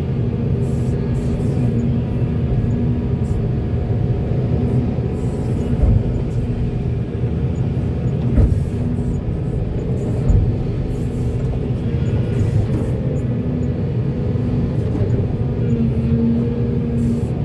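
Heavy diesel construction machinery running steadily, with three sharp thumps about two seconds apart near the middle.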